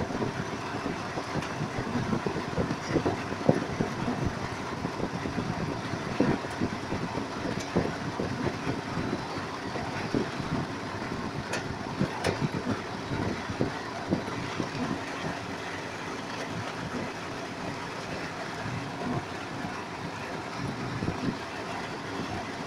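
Heavy storm rain and floodwater rushing through a street: a steady rushing noise scattered with irregular splashes.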